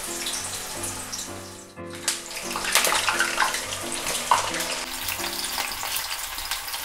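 Jackfruit pieces deep-frying in a pan of hot oil: a loud, dense sizzle with sharp crackles as pieces are dropped in, over background music with a simple repeating melody.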